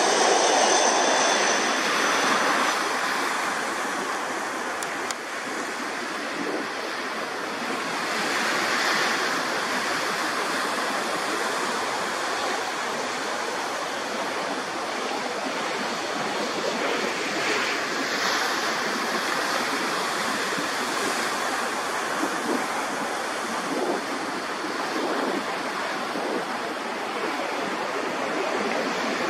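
Cessna Citation Sovereign business jet's twin turbofan engines heard as a steady rushing roar as it touches down and rolls out along the runway. A falling engine whine fades in the first second.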